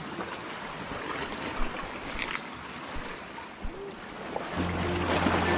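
Sea waves washing against shore rocks, an even rushing noise. About four and a half seconds in, background music with steady low tones comes in over it.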